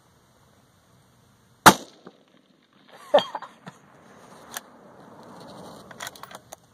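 A single 6.5 Creedmoor rifle shot about a second and a half in, the loudest sound. About a second and a half later comes a second sharp sound with a short falling tone, followed by scattered clicks and rustling.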